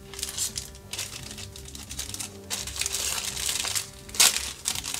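Thin plastic bag around a plastic miniature sprue crinkling as it is handled, in irregular crackles, with a sharper, louder crackle about four seconds in.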